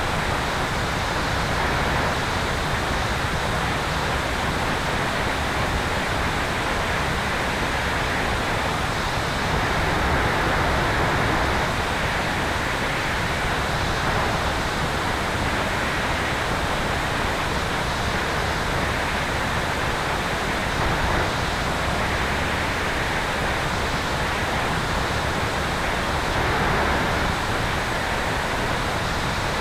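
Steady rush of airflow over a camera mounted on the tail of an electric airplane in flight. It is an even hiss with no distinct engine or propeller note standing out.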